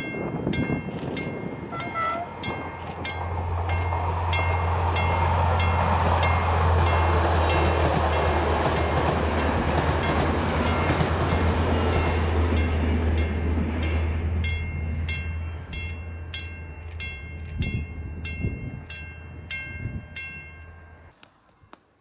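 ADtranz DE2000 diesel-electric locomotive hauling an InterCity passenger train past: a low engine hum and a rumble of wheels on rail build over the first few seconds, hold loud as it goes by, then fade as it moves away, cutting off shortly before the end.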